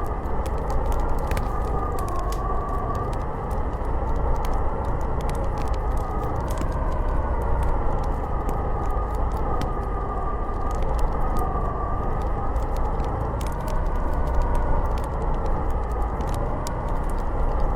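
Howling blizzard wind: a steady rush with a whistling tone that slowly rises and falls, over the scattered crackle and pops of a wood fire.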